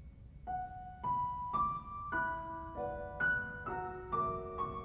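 Background piano music: after a short quiet moment, a slow melody of single notes begins about half a second in, roughly two notes a second.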